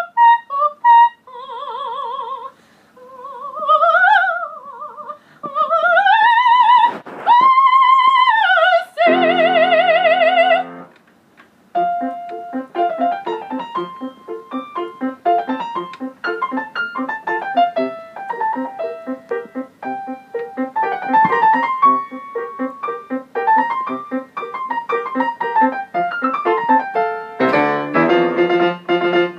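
Operatic soprano singing bel canto phrases with wide vibrato and sweeping rising and falling runs up to a held high note. Then piano plays on alone in a running line of notes, turning to loud full chords near the end.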